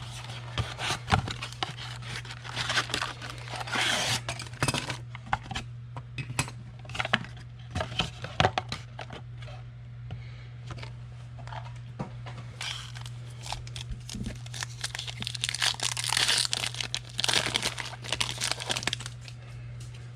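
Foil trading-card pack wrappers being torn open and crinkled, with longer spells of crinkling about two seconds in and again from about fifteen seconds, and small sharp crackles between. A steady low hum runs underneath.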